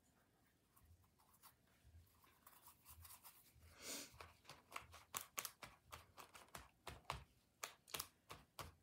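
Faint scratching of a paintbrush working watercolour across paper pages, then from about halfway a run of short, quiet dabs, taps and crinkles as a paper towel blots the wet paint to mottle it.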